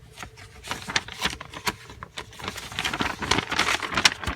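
Paper rustling and crinkling with many small irregular clicks, as the pages of a model kit's instruction booklet are handled and turned. It is busier in the second half.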